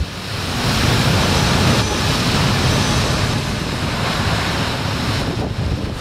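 Storm waves breaking and churning over rock ledges, continuous heavy surf, with strong wind buffeting the microphone.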